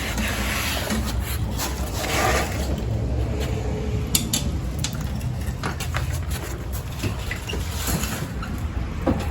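Handling noise as a walk-behind lawn mower is tipped over onto its side: scraping and rustling in the first couple of seconds, then a few sharp knocks and clicks of metal and plastic parts, over a steady low rumble.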